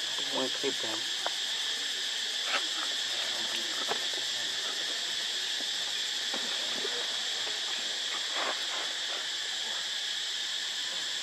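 Steady, high-pitched chorus of forest insects droning without a break, with a few soft clicks scattered through it.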